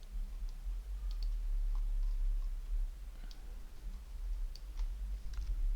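Several light, scattered computer mouse clicks over a steady low electrical hum.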